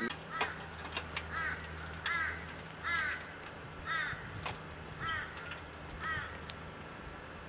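A bird calling over and over, one short call about every second, seven calls in all, falling silent about six seconds in.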